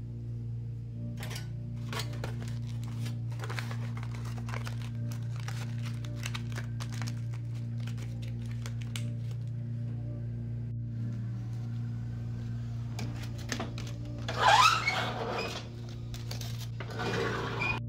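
Aluminium foil crinkling and rustling in repeated short crackles as a potato is wrapped in it by hand, over a steady low hum. About fourteen and a half seconds in comes a louder burst of rustling clatter, and a shorter one follows near the end.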